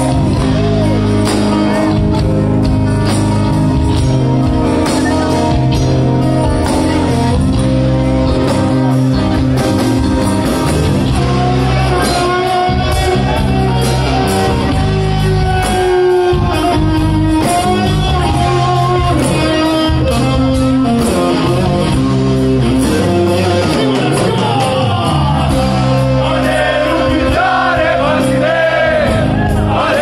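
Live fusion rock band playing on stage, with electric guitar, bass guitar and tabla under a male voice singing. The music runs loud and steady with a driving beat, and the singing comes in more strongly about halfway through.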